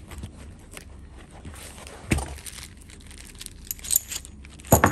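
Metal weight bars knocking and clinking as they are handled and pushed into the pockets of a weighted training vest, over fabric rustling; two dull knocks, about two seconds in and near the end, with a brief light metallic jingle just before the second.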